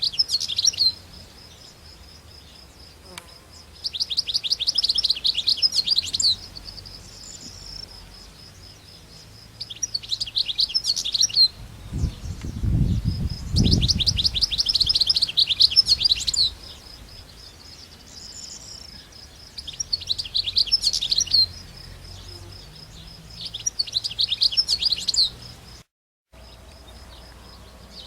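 European goldfinch singing: bursts of rapid twittering trills, each a second or two long, come every few seconds over a faint, steady, high-pitched ticking. A low rumble sounds about halfway through.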